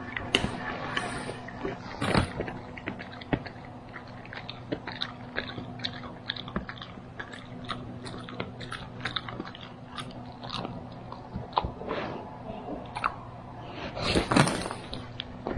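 A dog chewing a hard Arm & Hammer Nubbies dental treat: irregular crunching bites and clicks, with a louder burst near the end.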